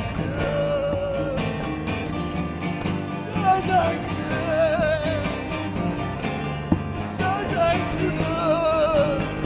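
Music from an acoustic folk song, with no words sung: an acoustic guitar plays the accompaniment under a wavering melody line with vibrato.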